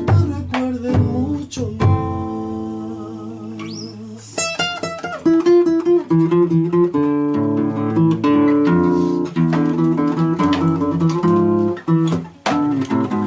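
Acoustic guitar playing an instrumental passage of an Argentine zamba, with plucked and strummed chords. A long wavering held note sounds a couple of seconds in.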